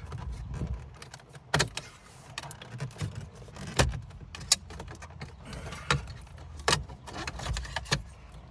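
Plastic dash bezel of a 2016 Nissan Sentra being pried and pulled free, its clips releasing with a series of sharp plastic clicks and knocks, about half a dozen of them spread out.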